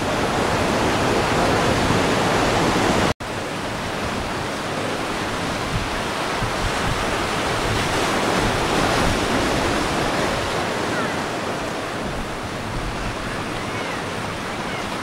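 Sea surf breaking and washing on the shore, a steady rushing noise that drops out for an instant about three seconds in.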